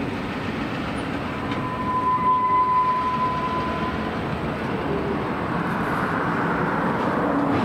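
Empty steel gondola cars rolling slowly around a curve: a steady rolling rumble of wheels on rail, with a brief high, steady squeal from about a second and a half in to about four seconds.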